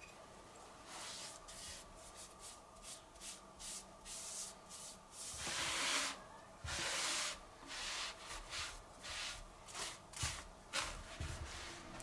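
Cloth rag rubbing over a wood-veneer box as wood stain is wiped on, in many short strokes with a longer, louder stretch of wiping in the middle.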